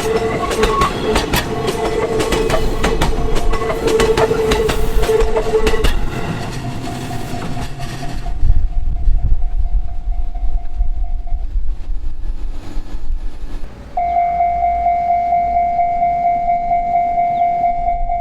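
An Ome Line train passes over a level crossing, its wheels clicking rapidly over the rail joints while a steady warning tone sounds, and its rumble fades after about eight seconds. About fourteen seconds in, a level-crossing alarm starts ringing, a steady tone pulsing about twice a second.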